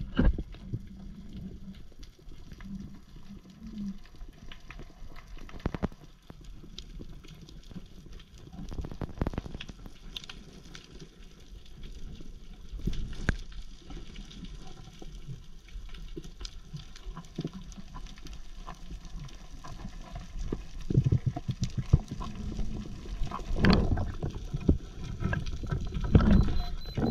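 Water heard through an underwater camera housing: a steady low rumble with scattered sharp clicks and knocks. Louder swells of low, sloshing sound come in near the end.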